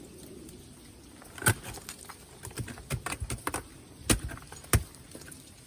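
Ice-climbing gear at work on waterfall ice: irregular sharp strikes and metallic clinks, a few loud ones with a patter of lighter taps between them.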